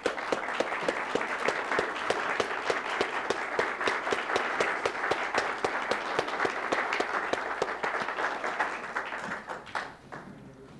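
A small audience applauding with many dense hand claps, thinning out and dying away near the end.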